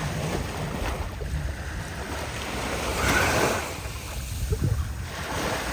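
Sea waves washing on a beach, one wash swelling up about three seconds in, with wind rumbling on the microphone.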